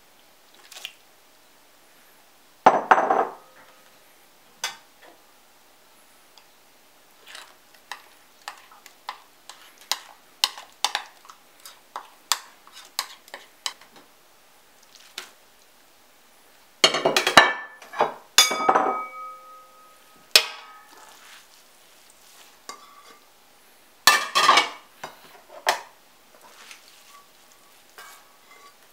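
A metal spoon clinking and scraping against a large stainless steel stockpot as noodles are stirred together with kimchi sauce, with many light taps. There is one loud clank about three seconds in, a cluster of louder clanks with a short metallic ring a little past the middle, and another cluster later on.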